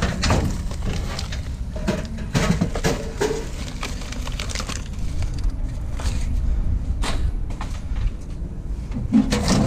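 Metal scrap being handled and pried at: scattered knocks and clatters over a steady low rumble.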